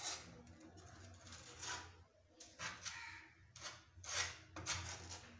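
Wood filler paste being pressed and smeared into a crack in a wooden door, heard as about half a dozen short, irregular scrapes.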